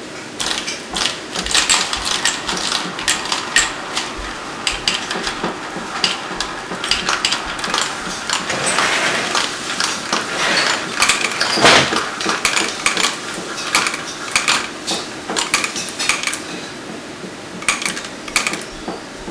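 Marbles rolling down a plastic marble run, clicking and clattering through the tracks and spiral rings. Many quick clicks, with a busier stretch of rattling and one louder knock about halfway through.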